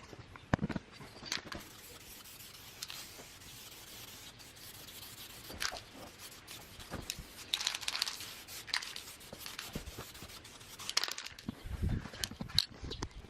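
Paintbrush strokes working enamel paint onto an old anvil: irregular scratchy rubbing strokes, with a few low knocks near the start and again near the end.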